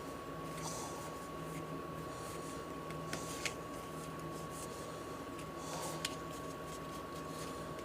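Faint handling of baseball cards: soft swishes of cards being slid and flipped, with a few light clicks, over a steady faint electrical whine.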